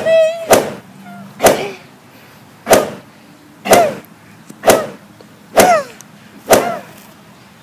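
A series of about eight sharp smacks, roughly one a second, each followed at once by a short cry that falls in pitch: blows landing in a fight, each with a yelp.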